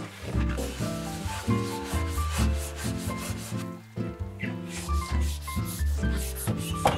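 A cotton cloth rubbing back and forth on the metal inside of an oven, wiping off splattered food, over background music with held notes and a low bass line.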